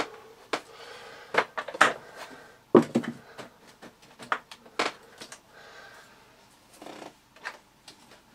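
Irregular sharp clicks and knocks of hard plastic as a screwdriver prises and levers at the clipped-together housing of a Miele S2111 vacuum cleaner.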